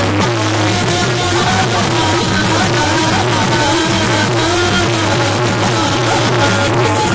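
Devotional Hanuman bhajan music played loud over a public-address loudspeaker system: a wavering melody over a steady low drone, continuous throughout.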